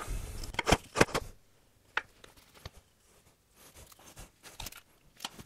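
Light knocks and clatter of wooden frame slats being handled and set down on a workbench, mostly in the first second or so, followed by a few faint scattered clicks.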